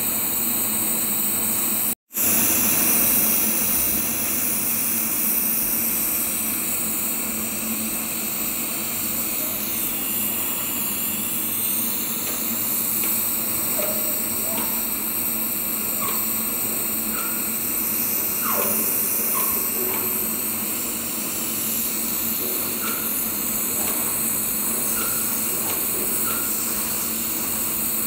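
TIG welding arc burning on a stainless steel pipe root pass: a steady hiss that cuts out for an instant about two seconds in.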